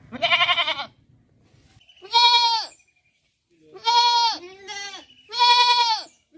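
Bleating from a farm animal: five short, loud, pitched bleats, each falling off in pitch at the end.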